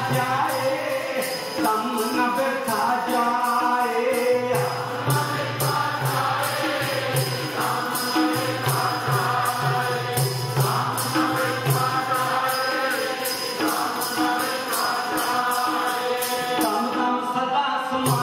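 Sikh congregation chanting in unison, led over microphones, with a steady percussion beat of about four strokes a second.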